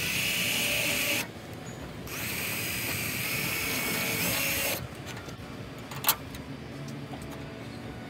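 Hitachi cordless drill boring two small screw holes through an aluminium diamond-plate toolbox lid: a steady high whine for about a second, then again for about two and a half seconds. A single sharp click follows about six seconds in.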